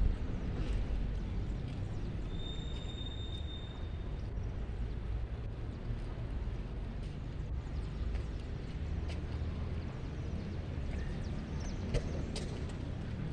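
Outdoor background noise: a steady low rumble, with a brief high whistle about two and a half seconds in and a few faint clicks.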